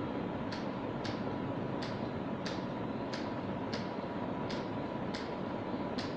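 Regular sharp ticking, about one and a half ticks a second, over a steady mechanical hum.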